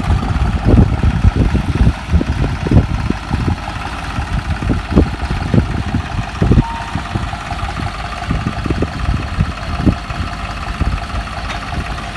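Modified New Holland 3630 tractor's diesel engine idling, its fuel pump opened up for more power. Irregular low thumps run through it.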